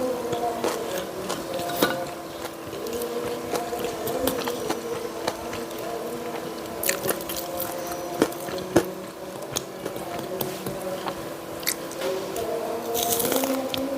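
Close-up eating sounds: biting and chewing crispy fried jalakotek, a spicy filled pastry, with sharp crunchy bites scattered irregularly through the chewing.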